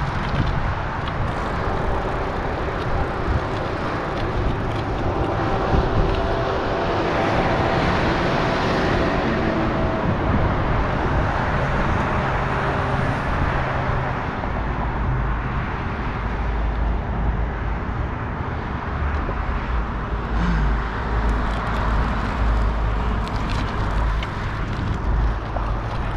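Steady road-traffic noise from cars on the freeway below the overpass, with a low rumble through much of the second half.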